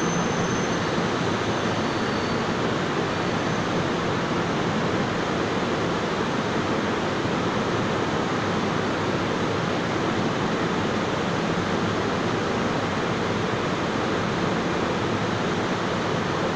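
Steady, even rushing noise of ventilation air in an underground rail station beside a stationary double-deck commuter train, unchanging throughout.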